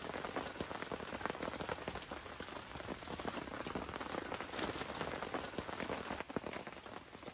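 Steady rain falling, many small drops striking a tarp shelter and the wet ground.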